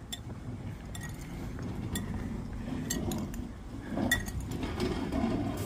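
Metal spoon clinking against a glass bowl as chopped vegetables are stirred, in scattered light taps, the sharpest about four seconds in.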